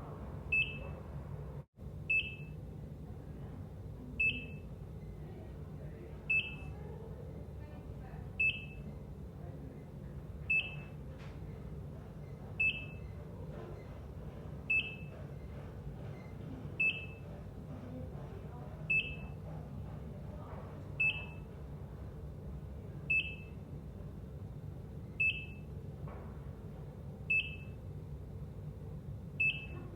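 ECG heart monitor beeping: a short, high single-pitched beep about every two seconds, a slow steady rhythm, over a constant low room hum. The background cuts out for an instant about two seconds in.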